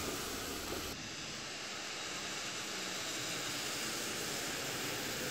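Steady, even hiss of road vehicle noise, with no distinct knocks or voices.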